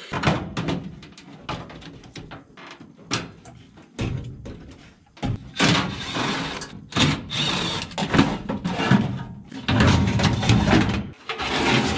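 Sheet-metal knocks, clanks and scraping as the blower assembly of a Carrier 90+ gas furnace is worked loose and slid out of its compartment. The sharp knocks come throughout, and the longer scraping noise is heaviest in the second half.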